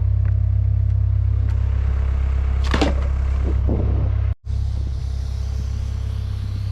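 A large engine running steadily at a low, even rumble, with a few short knocks or clatters on top about three seconds in. The sound drops out briefly about four seconds in, then carries on slightly quieter.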